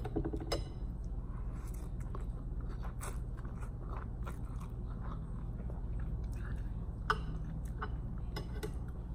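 A person chewing a mouthful of instant ramen noodles and cucumber salad, with scattered small clicks and one sharper click about seven seconds in, over a steady low room hum.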